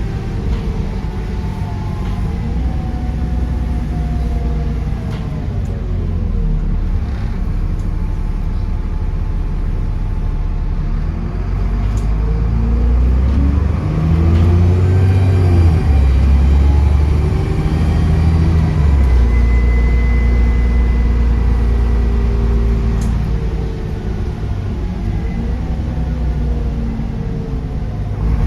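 Diesel engine of a double-deck bus heard on board while driving, its pitch climbing and dropping several times as it pulls away and changes gear. A brief high whistle, typical of the turbocharger, shows up about two-thirds of the way through.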